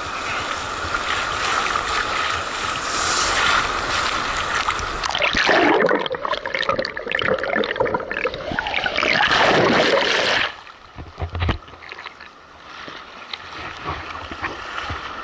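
Shallow surf washing and splashing around a camera held at the water's edge. About five seconds in the camera goes under, and the sound turns to muffled underwater gurgling and bubbling. It cuts off suddenly about ten seconds in, when the camera comes out, leaving a quieter wash of surf.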